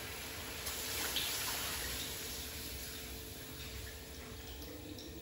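Blended spice paste thinned with water being poured from a blender jug into a wok, a steady liquid pour and splash, loudest about a second in and slowly tapering off.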